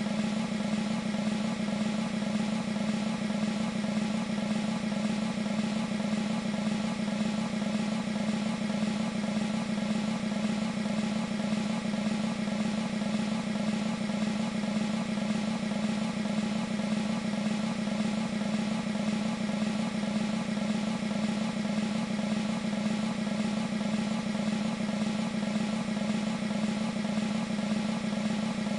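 Sampled military snare drum roll from an E-mu Proteus 2 sound module, held as one steady, unbroken roll of rapid strokes at an even level.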